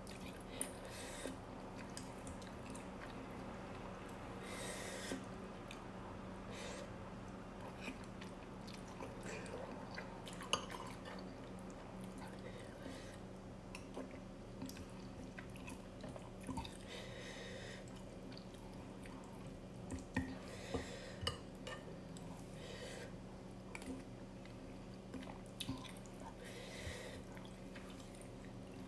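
A person eating instant noodles: chewing and several short slurps, with occasional light clicks of a metal spoon and chopsticks against the bowl, over a steady low hum.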